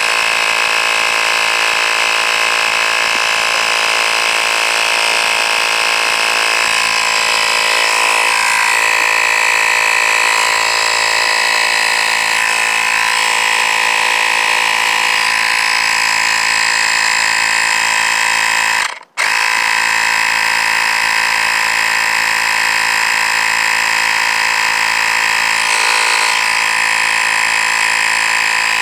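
A Monkey Grip miniature 12-volt tire air compressor running continuously, inflating a truck tire with a steady buzzing hum. It doesn't sound stressed. The sound cuts out for about half a second roughly two-thirds of the way through, then resumes.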